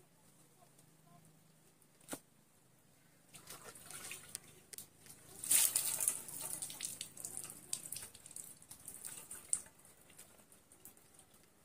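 Water being poured over a bather and splashing and dripping onto a wet wooden platform, starting a few seconds in and loudest around the middle. A single sharp knock about two seconds in.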